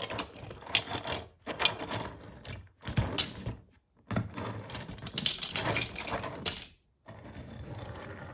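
Diecast toy cars clattering and clicking as they are rolled and handled, in several runs of rapid rattling broken by short pauses.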